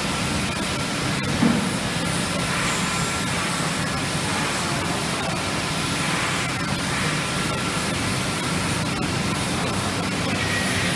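Steady rushing background noise of a factory hall, with faint steady tones in it and a brief thump about a second and a half in.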